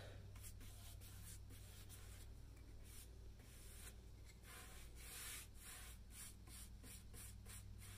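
Faint, repeated swishing of a paintbrush stroking a liquid wood coating onto a painted wooden tabletop, about two to three strokes a second, over a steady low hum.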